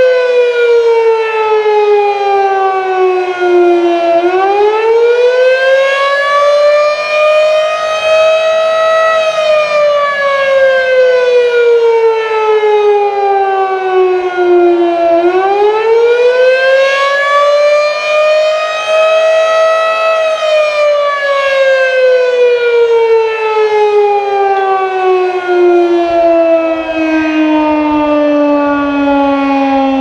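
Modified Federal Signal Model 5B single-phase fire siren wailing. Its single pitch dips and climbs back up twice, each rise taking about five seconds, then falls in one long, slow slide to its lowest pitch near the end.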